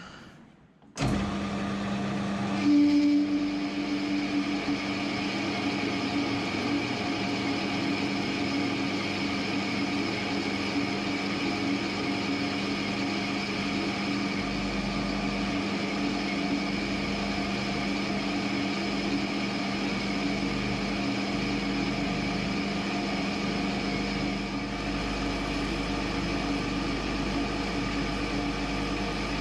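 Metal lathe starting up about a second in, then running steadily: an even motor-and-gearbox hum with several fixed whining tones.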